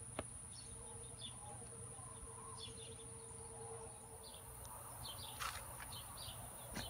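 Outdoor ambience of small birds chirping repeatedly over a steady high-pitched insect drone, with a few sharp clicks.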